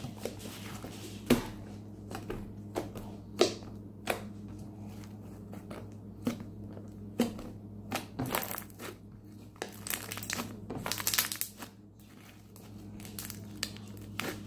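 Fluffy shaving-cream slime being squeezed and kneaded by hand: irregular sharp pops and squelchy clicks of trapped air, with two longer stretches of crackling, one a little past the middle and one later on.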